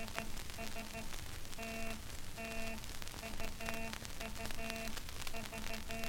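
Morse code letters of the alphabet, each sent twice, played from a Columbia 78 rpm shellac record: a low buzzing tone keyed in short dots and longer dashes, in groups with pauses between them, over steady record hiss and crackle.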